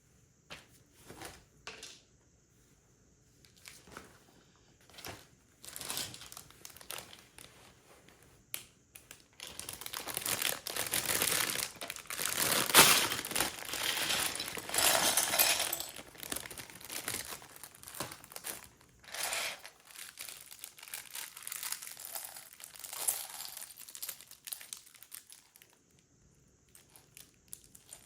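A plastic LEGO parts bag crinkling and being handled, loudest and most continuous in the middle, with a few small sharp clicks before it.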